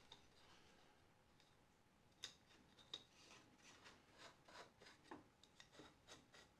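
Faint metal clicks and scraping of a nut being run onto a 3/8-inch threaded rod, a run of small ticks about three a second starting about two seconds in.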